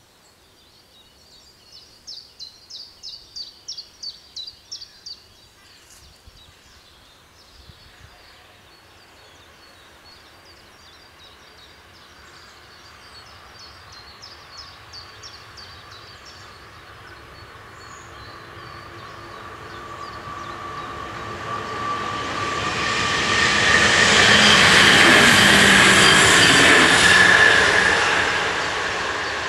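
A DM '90 diesel multiple unit approaching and passing: its engine and running noise swells over about ten seconds to a loud peak near the end, with a steady high whine in it, then starts to ease off. Before that, a bird calls twice in quick series of high chirps.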